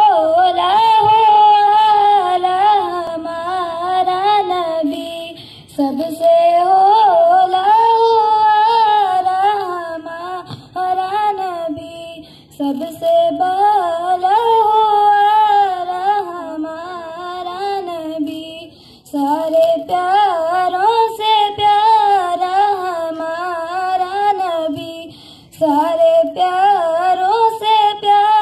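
A boy singing a naat, an Urdu devotional poem in praise of the Prophet, solo and unaccompanied into a microphone, in a high, wavering voice. He sings in long phrases of several seconds with short pauses for breath between them.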